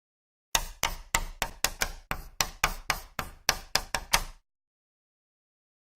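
Running footsteps: about fifteen quick, even footfalls at nearly four a second, stopping after about four seconds.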